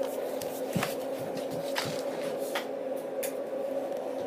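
Room tone: a steady low hum with a handful of faint clicks and taps.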